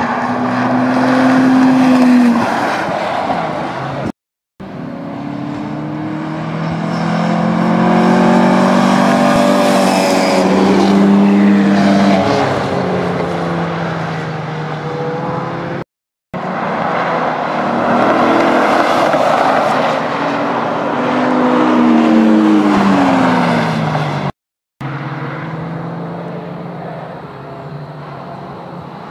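Race cars on a road course passing by one after another at speed, engines under load, their engine notes gliding up as they approach and falling away as they go past. The sound drops out briefly three times between clips.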